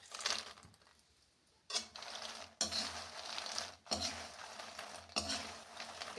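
Makhana (fox nuts) being stirred and roasted in ghee in a kadai: a spatula scraping and rattling the nuts against the pan, with sizzling. The sound cuts out for under a second about a second in.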